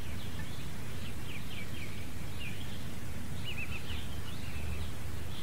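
Outdoor ambience: a steady low rumble with small birds chirping faintly, scattered chirps through the first half and a short quick trill about three and a half seconds in.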